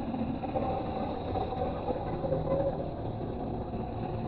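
Rain falling on a flooded road and water running over the surface, heard close to the water, over a steady low rumble of traffic.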